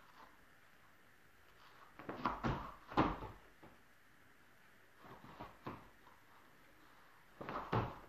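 Thuds of bare feet and hands landing on an inflatable air track mat during gymnastics moves. There is a cluster of thumps about two to three seconds in, a few softer ones in the middle, and more near the end as she goes into a cartwheel.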